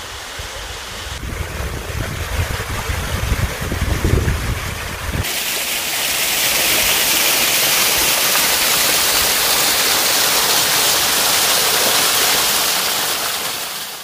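Small waterfall splashing down a rocky gully into a shallow stream, with a low rumble under it for the first few seconds. About five seconds in the sound jumps to a louder, steady rush of falling water, which fades near the end.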